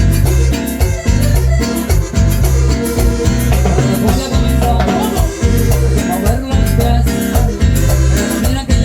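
Live tropical dance band playing an instrumental passage with a heavy, pulsing bass line and steady percussion.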